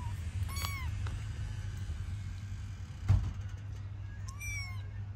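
Kitten meowing: a short high meow about half a second in and another near the end. A single thump about three seconds in, over a steady low hum.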